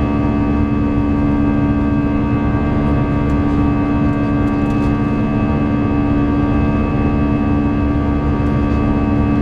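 Cabin noise of an Airbus A321 climbing just after takeoff, heard inside the cabin: the turbofan engines give a steady drone with two strong low hums and a set of fainter, higher steady tones.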